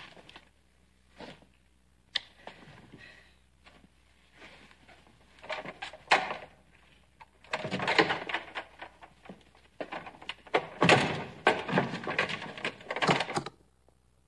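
Heavy iron-studded wooden door being worked open and shut. A few scattered knocks come first, then from about halfway in a dense run of knocks, thuds and scraping that stops suddenly near the end.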